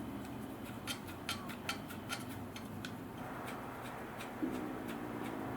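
Irregular light clicks and ticks of a screwdriver turning small screws into the Dyson V10's plastic housing, several a second at first, then sparser.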